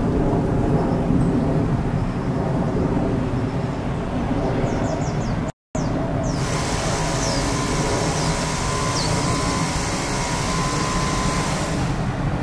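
City street traffic ambience: a steady, dense rumble of vehicles. About five and a half seconds in it cuts out for a moment, where one recording is spliced to the next. The second recording has more hiss and a few short high chirps.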